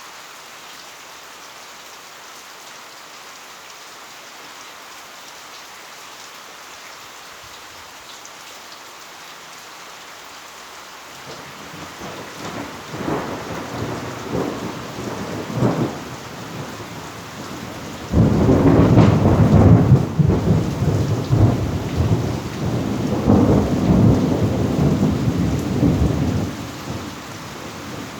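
Heavy rain falling steadily, with thunder rumbling in a little before halfway through and a loud thunderclap about two-thirds of the way in that rolls on for several seconds.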